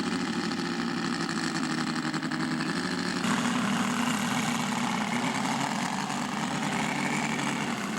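Engine of a large radio-controlled scale model airplane running steadily, stepping up a little in pitch and loudness about three seconds in.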